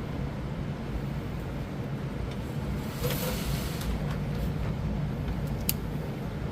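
Steady low mechanical hum, with a faint click near the end.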